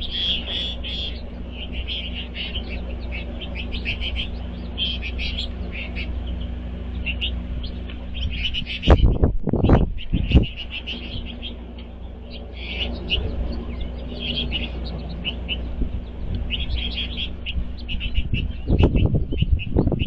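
Flock of American goldfinches twittering, with rapid clusters of short high chirps throughout over a steady low hum. A few loud low thumps come about nine to ten seconds in and again near the end.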